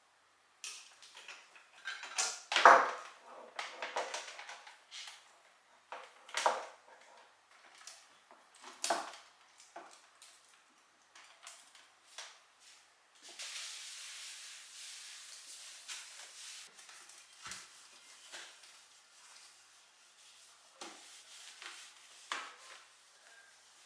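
Kitchen things being handled: a few clattering knocks of dishes or utensils, the loudest about three seconds in, then a steady hiss lasting a few seconds midway, followed by faint scattered clicks.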